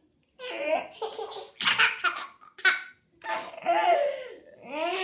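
Laughter in a string of short bursts, ending in longer high-pitched, drawn-out sounds whose pitch rises and falls.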